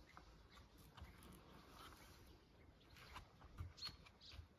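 Near silence: faint open-air background with a few scattered soft clicks and one very short high blip near the end.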